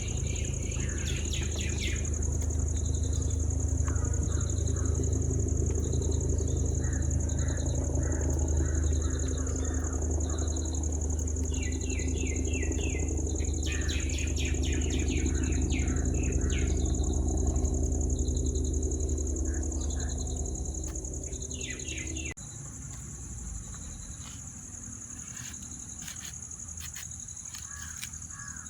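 Small birds chirping in short repeated calls over a steady low machine-like hum, which cuts off suddenly about three-quarters of the way through; a steady high-pitched whine runs underneath.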